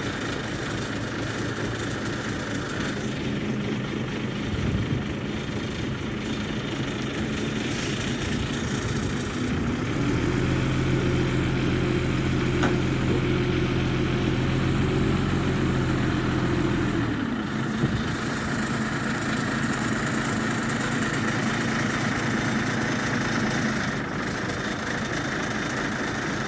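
An engine running steadily. About ten seconds in, its pitch and level rise and hold for about seven seconds, then drop back to the lower speed.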